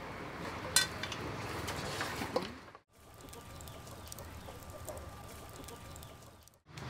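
A sharp knock about a second in and a few softer knocks, from a knife striking a chopping board as vegetables are cut, over faint outdoor background noise. After a brief dropout comes a few seconds of quieter steady hiss with a thin faint tone.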